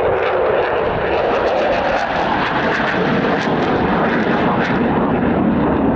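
Loud, steady jet noise from a maneuvering Sukhoi Su-30 MKI's two AL-31FP turbofan engines, with a rapid crackle through the middle seconds.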